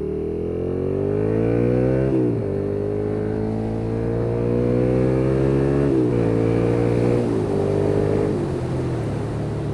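2009 Suzuki SFV650 Gladius 650 cc V-twin through an IXIL aftermarket exhaust, accelerating hard. The revs climb and drop sharply at upshifts about two and six seconds in, then the engine eases off near the end.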